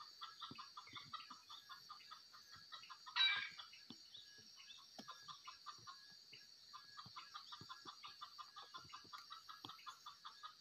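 Red junglefowl clucking in quick runs of short notes, with one louder, brief call about three seconds in. A steady high-pitched hum runs underneath.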